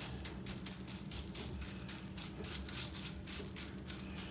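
Ceramic baking beans clicking against each other and cling film crinkling as hands press the beans into a film-lined pastry case: a run of quick, irregular rustles and clicks over a low steady hum.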